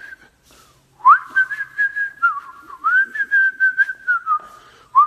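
Someone whistling a tune: a clear note swoops up about a second in, then wavers through a melody in a narrow range, with faint clicks underneath.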